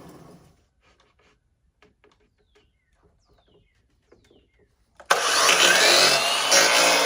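Faint scattered clicks and knocks, then about five seconds in a power saw starts abruptly and runs loudly, cutting a wood cabinet panel to size.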